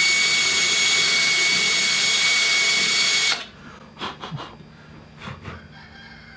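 Cordless drill spinning a wire brush in reverse against the rusty threads of a steel fuel tank's valve opening: a steady high whine over a scraping hiss. It stops suddenly about three seconds in, followed by a few light knocks.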